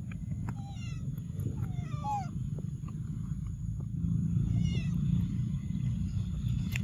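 Young macaque squealing in short, high, falling calls in three bouts, about one, two and five seconds in, over a steady low rumble.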